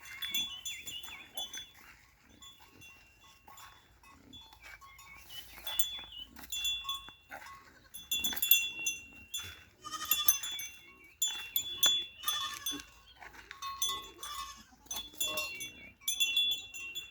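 Goats bleating repeatedly, several calls overlapping at times, with short ringing tones recurring between them.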